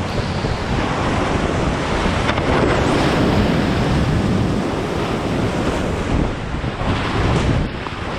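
Rushing river water, a steady loud rush of noise, with wind buffeting the microphone.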